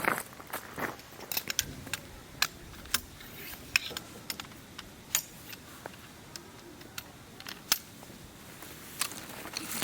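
Irregular sharp clicks and light taps of small objects being handled, a dozen or so spread unevenly, a few louder than the rest.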